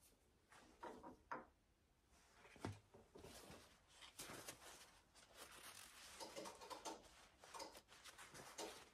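Faint handling sounds: a few small clicks and a light knock in the first few seconds, then the soft, irregular rustle of a paper shop towel being rubbed between the hands.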